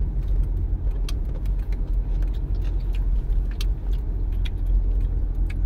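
Car cabin noise inside a slow-moving vehicle: a steady low engine and road rumble, with scattered small clicks and rattles.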